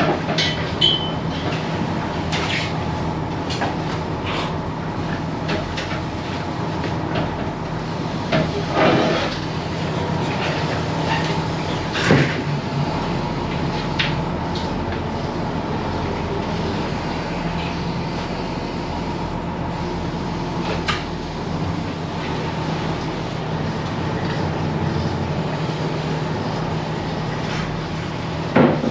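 Fishing boat's engine running steadily, with occasional clanks and knocks of cages and gear being handled on deck.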